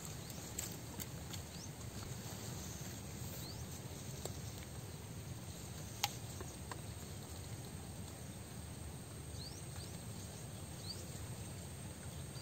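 Quiet outdoor ambience: a steady low rumble, a few faint high chirps and a single sharp click about six seconds in.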